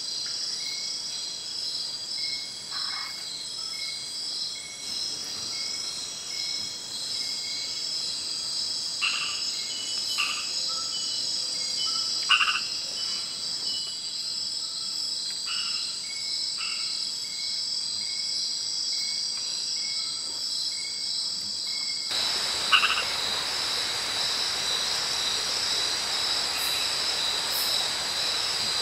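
Night rainforest chorus: steady, high-pitched insect trilling, with short frog calls repeated every second or so. About three-quarters of the way through, a steady hiss comes in under the chorus.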